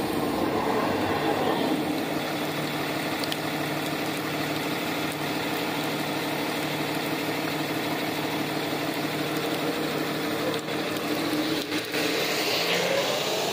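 Diesel locomotive engine running steadily at low speed with an even hum as a train moves slowly. A rising wheel squeal starts near the end.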